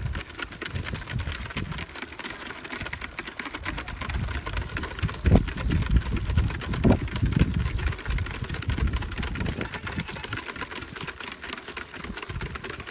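Several goat kids sucking at once on the soft rubber nipples of a bucket calf feeder: a dense, rapid, continuous patter of sucking and slurping clicks, with a few low thumps about five and seven seconds in.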